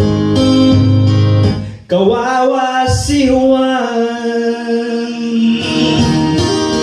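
A song playing: a male singer with acoustic guitar. The music dips briefly just under two seconds in, then the voice comes in over the guitar.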